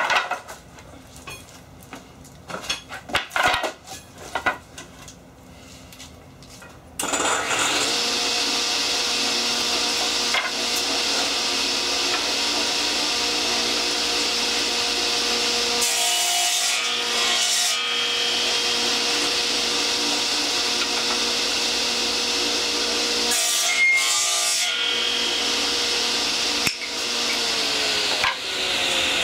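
A few knocks of wooden boards being handled, then a table saw switched on about a quarter of the way in and running steadily, its blade cutting through wooden strips twice.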